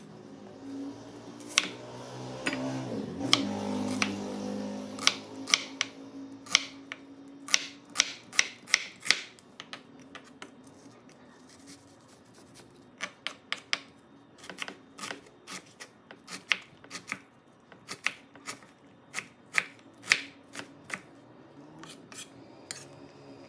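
Chef's knife chopping a white onion on a wooden cutting board: sharp, irregular knocks of the blade against the board, some in quick runs.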